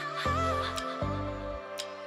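Background music: a deep bass line stepping between notes about every three quarters of a second under a wavering melody.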